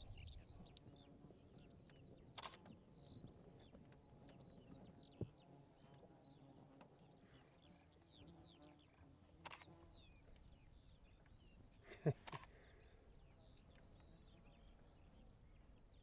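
Faint chorus of many short, high bird chirps, with a few sharp clicks about two and a half, nine and a half and twelve seconds in, the last the loudest.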